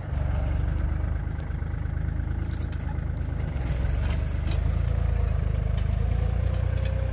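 Kubota 3218 tractor's diesel engine running steadily under load while it pulls a five-disc plough through dry field soil. A few light clicks sound over a deep, even rumble, and a faint steady whine comes in during the last few seconds.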